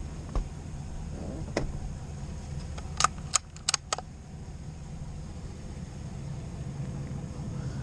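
Pickup truck engine running with a steady low hum, and a quick cluster of sharp clicks and knocks about three to four seconds in.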